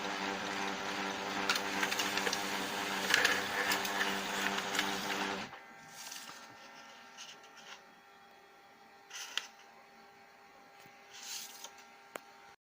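Lexmark MB2236 laser printer running with a grinding noise: a steady motor hum with rough grinding over it, the fault its owner fixes by greasing the fuser. About five and a half seconds in it drops to a much quieter whir with a few brief rustles.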